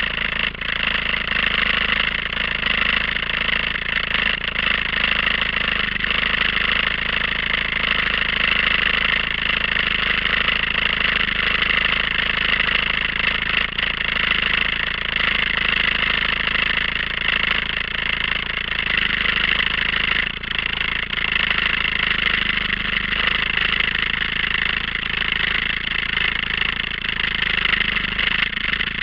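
ATV engine idling steadily, with a constant hiss over it.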